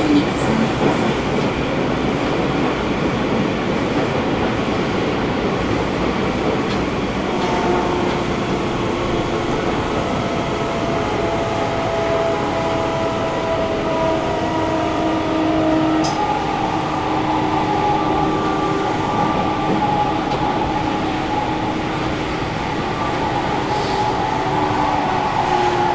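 Interior running noise of a Sendai Subway 1000N series train in a tunnel: steady wheel and rail rumble with the air conditioning on. From about a third of the way in, several steady motor tones join the rumble.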